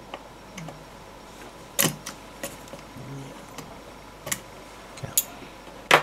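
Small clicks and scrapes of a multi-tool's Torx bit working at screws in a plastic speaker case. The bit is the wrong size for the screws. A loud clatter near the end as the metal tool is put down on the desk.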